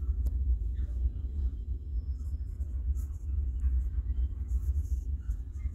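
Low, uneven rumble of a container freight train's wagons rolling past, with faint scattered ticks above it.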